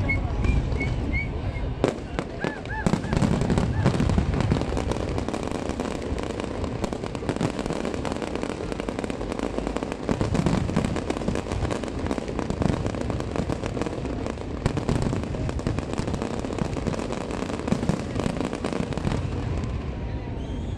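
Fireworks display: a continuous barrage of booming shell bursts and crackling, with no pause. A few short whistles sound about two to three seconds in.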